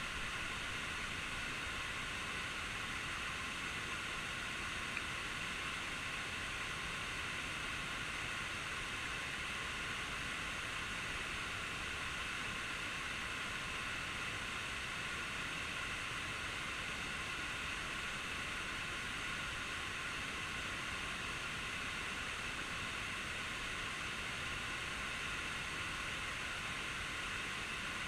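Steady, even rush of a waterfall's falling water, with one tiny click about five seconds in.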